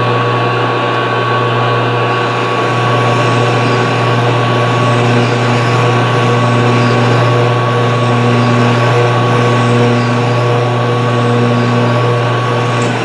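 Colchester lathe running under power with the half nuts engaged, taking a thread-cutting pass: a steady, loud hum with gear whine. It winds down right at the end.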